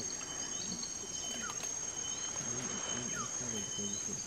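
Rainforest insects droning steadily at a high pitch, with a few short bird chirps and a low voice briefly in the middle.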